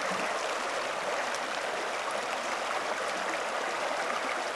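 Shallow creek running over a rocky bed: a steady rush of flowing water.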